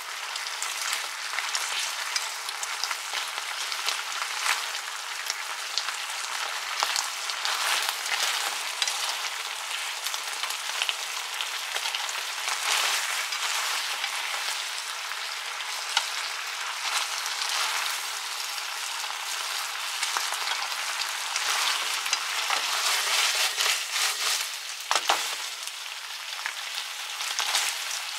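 Chicken wings sizzling and crackling in a frying pan as their sweet soy glaze boils down and thickens, with chopsticks turning the wings. A single sharp knock comes a few seconds before the end.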